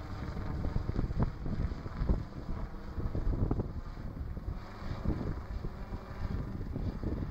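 Wind buffeting the microphone, an uneven low rumble that surges in frequent gusts.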